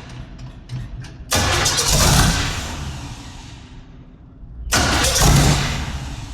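V8 engine in an Austin-Healey running low with a few crackles, then revved sharply twice, a little over a second in and again near the end, each blip dying back down toward idle.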